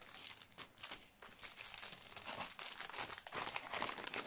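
Plastic packaging crinkling as it is handled: a quick, irregular run of small crackles that grows denser about a second in.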